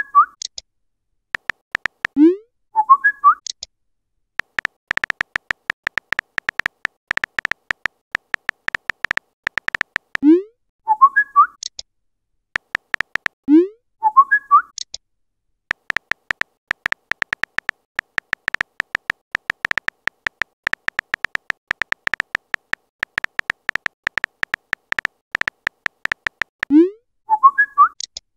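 Simulated phone keyboard typing sounds: long runs of rapid clicks, broken four times by a short chat notification sound, a quick rising pop followed by a bright chirp, as each message is sent or received.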